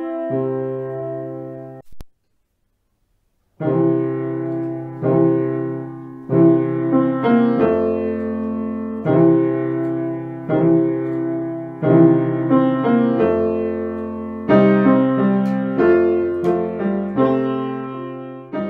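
Background piano music: notes and chords that each strike and fade. It breaks off about two seconds in and starts again after about a second and a half of silence.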